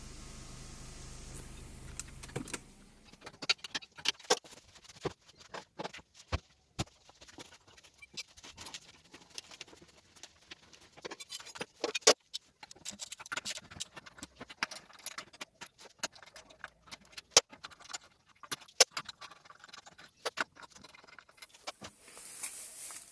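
A steady low hum that stops about two and a half seconds in, then many irregular metallic clinks and clicks, like metal tools or parts being handled.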